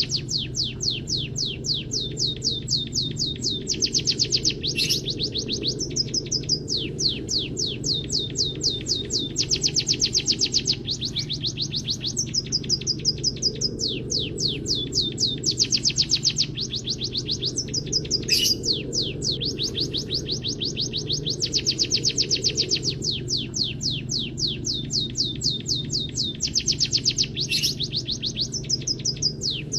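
A munia sings canary-style trills: fast runs of rapidly repeated high notes, several per second, that shift to a new pitch every second or two. A steady low hum runs underneath.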